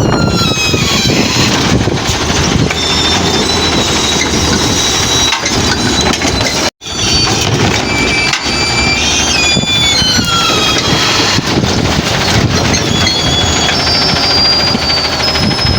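Garbage truck working, with several high whining tones that slide up and down over a heavy low rumble of wind on the microphone. The sound drops out briefly about seven seconds in.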